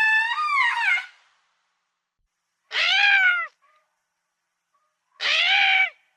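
Lemur calling: three separate high-pitched cries, each under a second long, with about two seconds of silence between them. The first is already under way at the start and wavers in pitch near its end.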